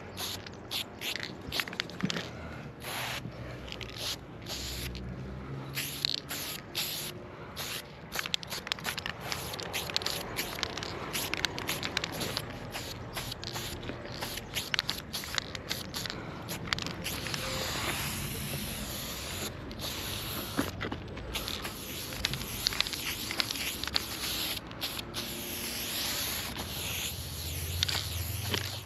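Aerosol spray paint can hissing as paint is sprayed onto a wall, in many short bursts at first, then in longer, steadier strokes through the second half.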